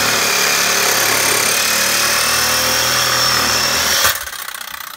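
Reciprocating saw running at full speed, its blade cutting through 1.5-inch Schedule 40 PVC drain pipe. About four seconds in the blade breaks through, the noise drops suddenly, and the saw winds down.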